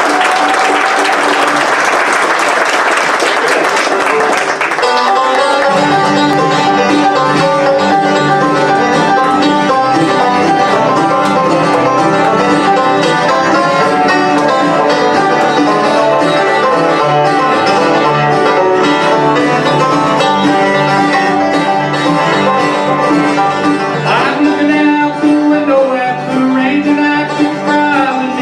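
Bluegrass band playing live on five-string banjo, mandolin, acoustic guitars and upright bass, coming in about five seconds in after a few seconds of crowd noise that stops abruptly.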